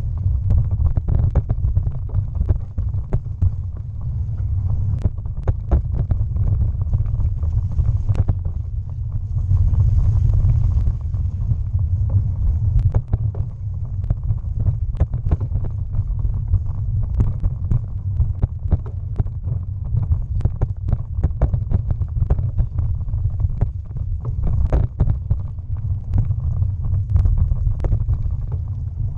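A bicycle ridden over a rough towpath, heard through a bike-mounted action camera: a steady low rumble, with frequent sharp knocks and rattles as the bike and camera mount jolt over the uneven surface.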